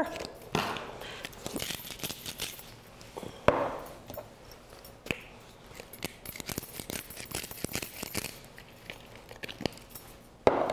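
Salt and pepper being ground by hand over a glass mixing bowl: runs of fine crackling clicks, with a few small clinks and one sharp knock about three and a half seconds in.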